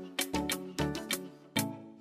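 Background music with a steady beat and plucked, guitar-like notes.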